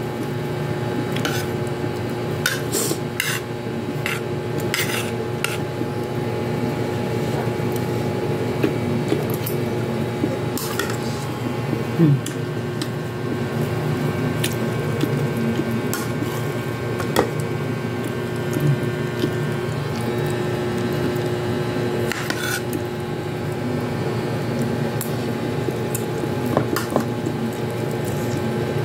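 Metal spoon clinking and scraping against a ceramic plate as rice is scooped up, in sharp single clinks: several close together in the first few seconds, then scattered ones. A steady hum runs underneath.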